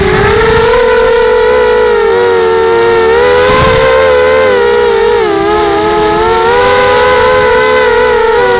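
Pitbull 250 FPV racing quadcopter's brushless motors and propellers whining steadily, the pitch wavering a little with throttle and dipping briefly about five seconds in.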